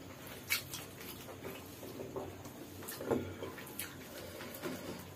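Close-up eating sounds: scattered short wet clicks and smacks from chewing, and from fingers tearing flatbread and working it through gravy on a banana leaf.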